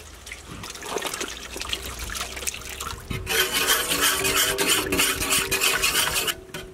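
Melted butter pouring into beaten eggs in a large metal pot, then from about three seconds in a wire whisk beating the liquid mixture fast in the pot, stopping shortly before the end.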